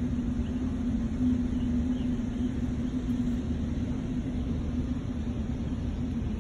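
A steady low rumble with a constant hum, from a running motor or engine.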